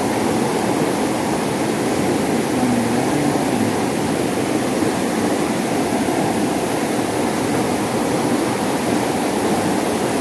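Steady rush of a fast-flowing river current.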